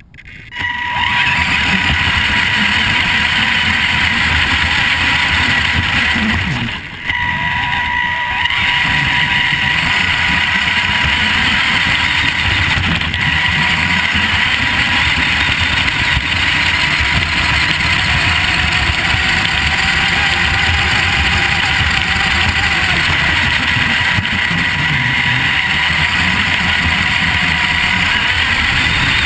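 Vaterra Twin Hammers RC rock racer driving over grass, its electric motor and drivetrain running, as picked up by its onboard camera: a steady high tone over rough noise. It starts up about half a second in and dips briefly about seven seconds in.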